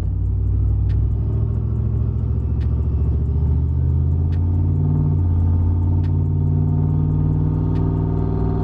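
Supercharged GM pickup's engine heard from inside the cab while cruising: a steady, loud drone that rises a little in pitch about halfway through. Faint light clicks come about every second and a half.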